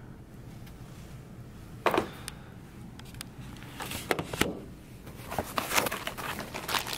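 A package being handled and opened: a single knock, then two more a couple of seconds later, then a run of clicks and rustles of cardboard and packing near the end.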